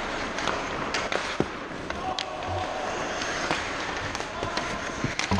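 Ice hockey play close to the net: skate blades scraping the ice under several sharp clacks of sticks and puck, the loudest about a second and a half in.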